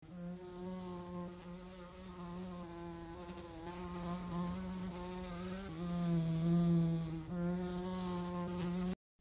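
Housefly buzzing in a steady drone that swells and fades as it flies about, loudest past the middle, then cuts off suddenly near the end.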